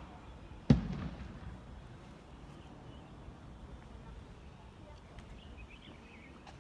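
One sharp impact just under a second in, ringing briefly, then a low background with a few faint taps.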